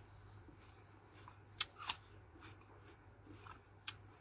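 Mouth sounds of a person chewing fruit: a few sharp, wet clicks, two close together about a second and a half in and another near the end, over a faint steady low hum.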